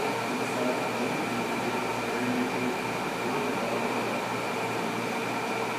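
Steady machine hum and hiss with a faint high whine, the constant running noise of an indoor fish-tank room's equipment.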